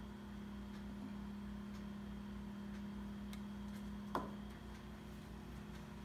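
Quiet workshop room tone: a steady low hum with a few faint ticks, and one short tap about four seconds in.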